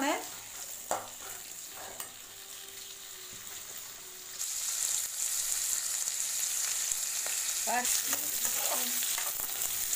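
Sliced onions sizzling in hot oil in an aluminium kadai while a metal slotted spatula stirs them, with a couple of sharp knocks of the spatula on the pan in the first two seconds. The sizzle grows much louder about four and a half seconds in.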